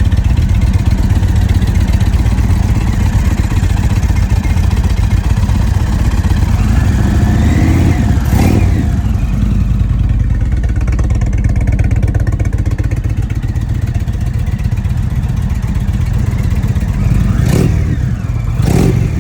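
2021 Indian Vintage Dark Horse's Thunderstroke 111 V-twin idling steadily. It is revved once about seven to eight seconds in and blipped twice near the end. This bike runs normally, without the whine of the other bike.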